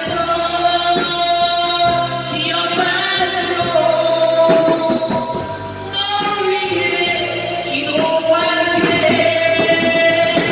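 Live band music: a singer holding long notes over keyboard and drum-kit backing.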